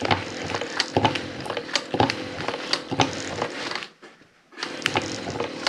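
Juki 241 industrial sewing machine, driven by a high-torque motor rather than a clutch motor, stitching slowly through heavy canvas under foot-treadle control. A sharp click comes with each stitch, about one to two a second. The machine stops briefly about four seconds in, then picks up faster near the end.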